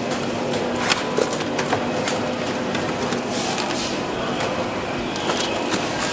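Assembly-line workshop ambience: a steady machine hum with scattered small clicks and taps of tablet parts and trays being handled on the workbenches.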